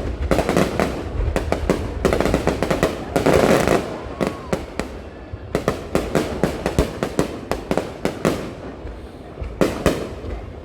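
Fireworks going off in dense, irregular volleys of sharp cracks and pops, over a constant low rumble. The crackling is thickest in the first few seconds, thins out in the middle and picks up again near the end.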